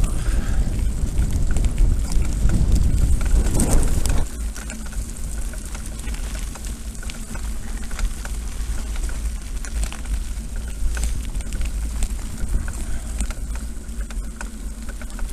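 Wind buffeting an action camera's microphone while a mountain bike rolls over a dirt and gravel track, with a steady crackle of tyres and rattles on the rough surface. The heavy wind rumble drops sharply about four seconds in, leaving the crunching and small rattles.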